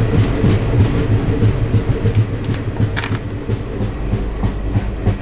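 Passenger train running along the track, heard from inside the carriage: a steady, loud rumble of the wheels with rattles and irregular clicks.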